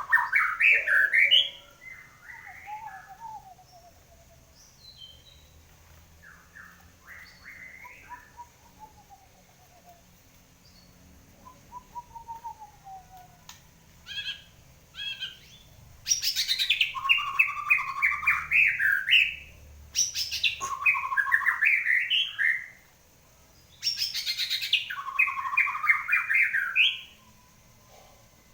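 White-rumped shama singing in full song after its moult: a loud phrase at the start, softer warbling and a couple of short calls in the middle, then three long, loud bursts of rapid song in the second half.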